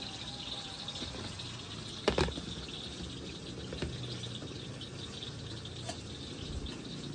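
Steady, high-pitched insect chirring over a low hiss, with one sharp knock about two seconds in.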